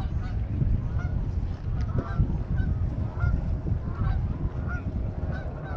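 Birds giving short repeated calls, roughly two a second, over a steady low rumble.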